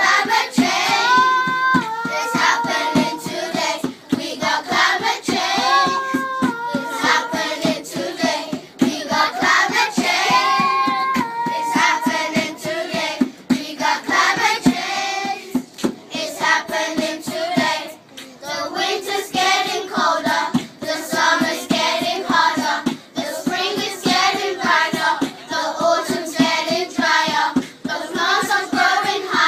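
Children singing together over music with a steady beat: long held notes in the first half, quicker syllables from about halfway on.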